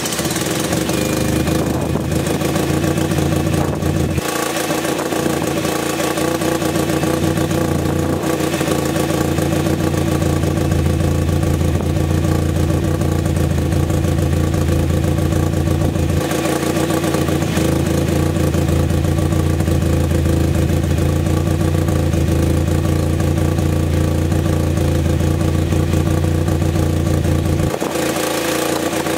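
Mazda RX-8's freshly swapped-in 13B rotary engine running on its first start-up. It holds a steady running note, and its low drone drops back and returns a few times.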